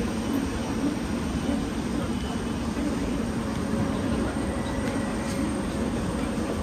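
Busy railway platform ambience: a steady low rumble and hum from trains standing at the platforms, with a murmur of passengers.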